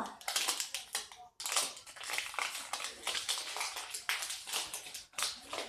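Packaging being handled: irregular rustling and crinkling with small taps, as parts are unwrapped.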